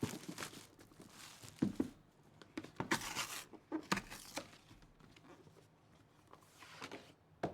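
Plastic wrapping crinkling and tearing in irregular bursts as a packaged mystery T-shirt is opened and unwrapped.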